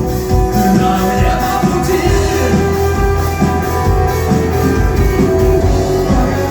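Rock music with a steady beat and sustained instrumental tones.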